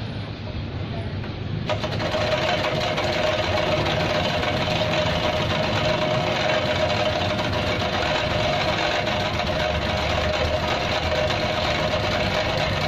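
Electric vegetable slicer switched on about two seconds in, its motor running steadily with a constant whine while it slices a handful of lemongrass.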